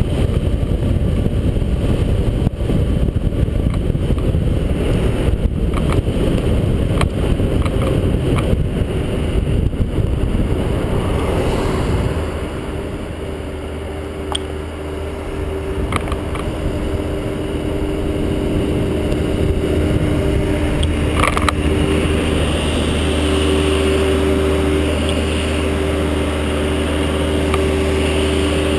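Wind buffeting the microphone of a camera on a moving bicycle, a dense low rumble that eases about twelve seconds in as the bike slows. After that a steady low hum of engines is heard, with a few clicks.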